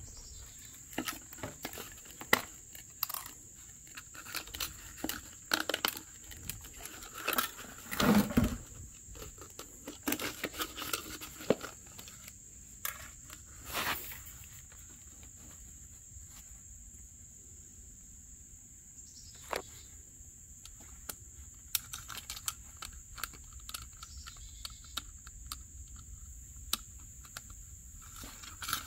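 Irregular crinkling, scraping and tapping from hand work, loudest about eight seconds in and quieter for a few seconds past the middle, with a faint steady high-pitched tone throughout.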